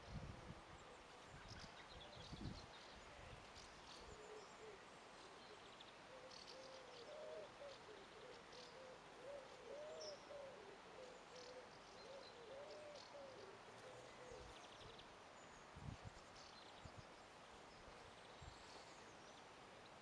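Faint outdoor birdsong: scattered short, high chirps and twitters of small birds. Through the middle there is a low, wavering call that repeats for about ten seconds. A few dull low thumps come near the start and once more later.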